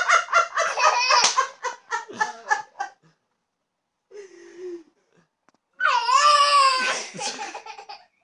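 A toddler laughing in quick high-pitched bursts, then after a pause a loud high squeal with a dip and rise in pitch, trailing off into more short giggles.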